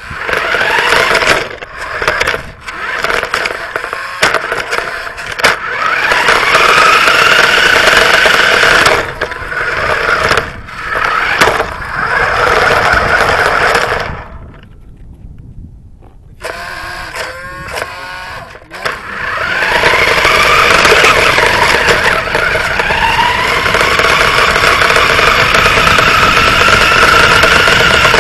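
Radio-controlled car driving on asphalt: its motor whines, rising in pitch as it speeds up, over tyre and road noise. It runs in bursts, cutting out briefly several times and falling nearly silent for about two seconds halfway through.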